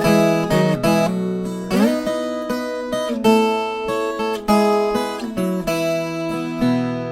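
Viola caipira, the Brazilian ten-string folk guitar, playing an instrumental tune: a run of picked notes with ringing overtones over sustained bass notes.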